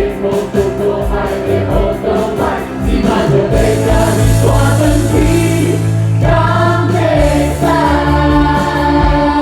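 A mixed group of male and female voices singing a musical-theatre song together with a live band, holding long notes over sustained low bass in the second half as the song builds to its close.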